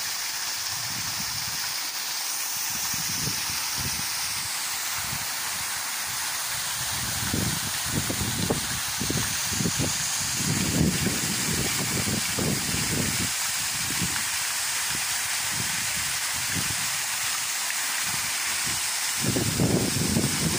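Waterfall rushing: a steady hiss of falling water, with uneven low rumbling surges that come and go, strongest in the second half.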